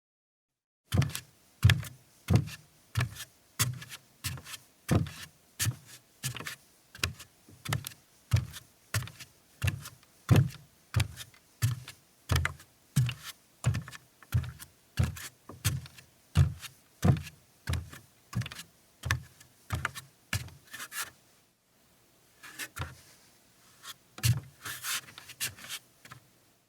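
Footsteps on a wooden floor: a person walking at a steady pace, about one and a half steps a second, each step a low thud with a sharp click. After a short pause near the end come a few lighter, uneven steps.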